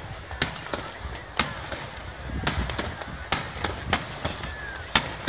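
Aerial firework shells of a rapid-fire starmine barrage bursting, about eight sharp bangs at uneven intervals over a low rumble.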